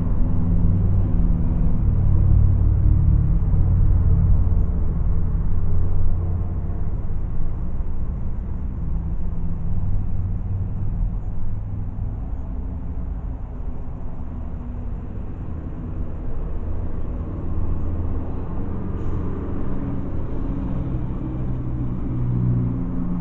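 Car engine and road rumble heard from inside a moving car, a steady low drone that is louder for the first six seconds or so and then eases slightly.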